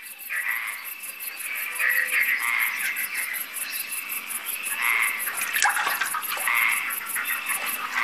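Frog chorus: many frogs calling together in a fast, steady trill, swelling into louder bouts every second or two.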